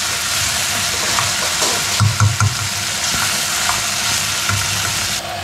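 Sliced salak (snake fruit) and red onion sizzling steadily in oil and vinegar in a pot, stirred with a wooden spoon that scrapes and knocks now and then. The sizzle drops a little shortly before the end.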